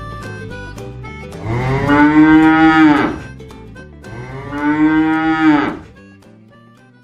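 A cow mooing twice, each call long and loud, over background music that fades out near the end.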